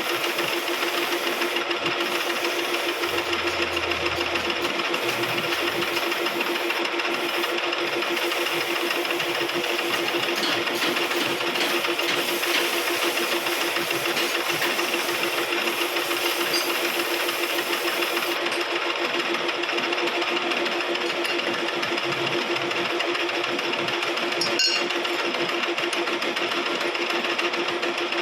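A lathe running steadily with a constant motor hum and a hiss of turning over it; the hiss eases about two-thirds of the way through, and there is a single sharp click near the end.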